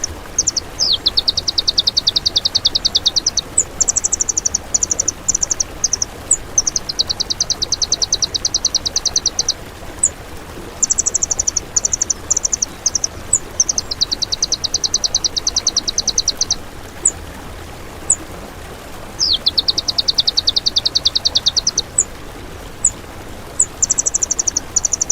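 Songbird song for masteran training: phrases of rapid high trills a couple of seconds long, alternating with shorter broken trills and single sharp high chips, repeated several times over a steady hiss.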